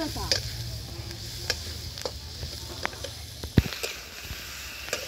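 Sliced onions sizzling in oil in a wok, a metal spatula scraping and clicking against the pan. A single loud knock about three and a half seconds in, as the raw chicken pieces go into the pan.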